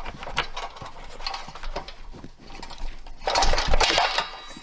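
Metal clicking and clinking as the pin on the trailer's old breakaway cable is worked and pulled out of the breakaway switch, taking some force, with a louder rattling burst about three seconds in.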